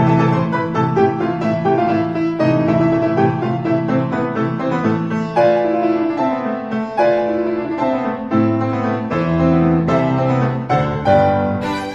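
Background music: a piano playing a flowing melody over a bass line.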